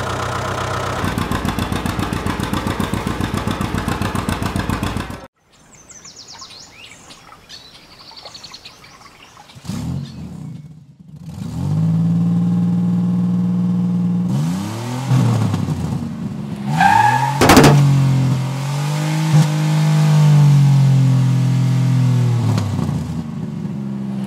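A vehicle engine running steadily with a fast pulse, cut off abruptly about five seconds in. After a quieter stretch with birds chirping, an engine runs again and revs up and down, with a sharp click partway through.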